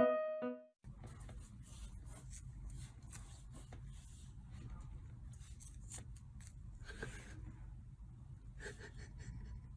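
A piano tune ends within the first second, then faint room sound: a steady low hum with soft, scattered rustles and clicks.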